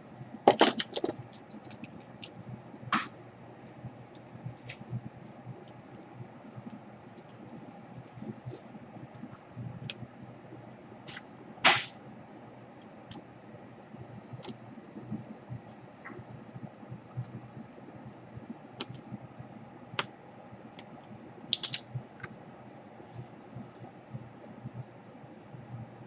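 Scattered sharp clicks and small scrapes of hand work as heat shrink is picked off the wires of a laptop DC power jack, with a few louder clicks about a second in, near the middle and a few seconds before the end, over a faint steady hum.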